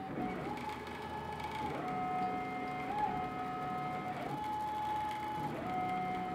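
Stepper motors of an Avid CNC router driving the gantry through an air-pass toolpath: only the drive motors whine, with the spindle switched off and nothing being cut. The steady whine steps up and down in pitch every second or so as the machine changes from one move to the next.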